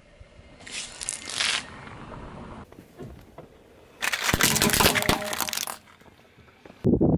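Small plastic toy trucks cracking and snapping as a car tyre rolls over and crushes them on asphalt: a dense burst of crunching that starts about four seconds in and lasts about a second and a half. A shorter, softer crunch comes about a second in, and another loud crunch begins just before the end.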